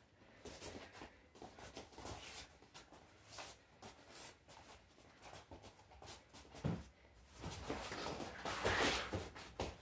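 Two wrestlers hand-fighting on a wrestling mat: scattered scuffs of feet and slaps of hands, then louder scrambling about seven seconds in as one shoots in for a takedown.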